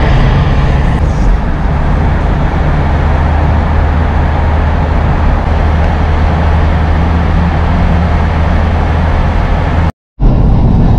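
Steady road and engine noise inside a moving car's cabin at motorway speed: a low rumble with tyre hiss. The sound cuts out completely for a moment near the end, then the same driving noise resumes.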